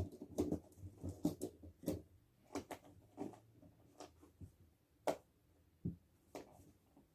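Zip ties being taken off the packaging of a boxed animatronic prop: scattered rustles, clicks and taps of plastic and cardboard being handled, with one sharper click a little after five seconds.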